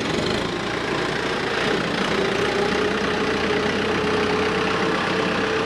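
An engine running steadily, with a steady whine that comes in about two seconds in and fades out near the end.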